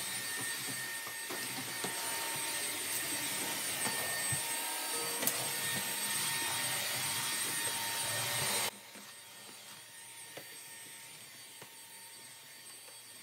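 Bissell cordless stick vacuum running steadily on a hard laminate floor, a motor hiss with a high whine. It cuts off abruptly about two-thirds of the way in, leaving only a faint hush.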